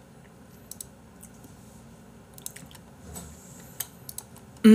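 Quiet room sound with a few scattered faint clicks, then near the end a man's short vocal sound falling in pitch.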